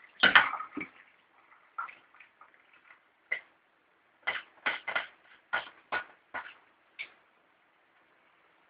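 Short plastic clicks and knocks from a water-filter housing and its cap being handled: one sharp, louder knock about a quarter second in, then about ten lighter, irregular clicks over the next few seconds.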